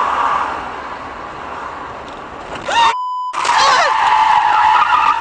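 Car cabin road noise at speed. About three seconds in, a roe deer smashes into the windshield: a sudden loud crash and a cry, a short censor bleep over a word, then loud rushing noise through the shattered windshield.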